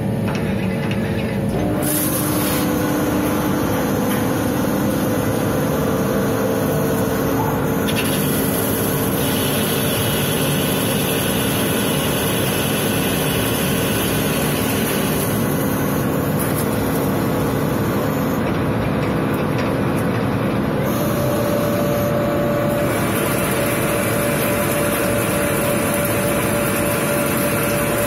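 16A20F3 CNC lathe running under cut, machining the bore of a metal roller with coolant spraying: a steady dense hiss over a machine hum. The hum shifts in pitch about two seconds in and again at about twenty seconds.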